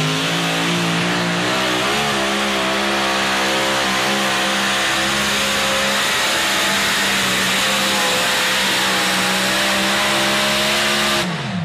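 Pulling tractor's engine at full power, hauling the weight-transfer sled down the track. The revs climb at the start, hold steady and loud, then drop off sharply near the end.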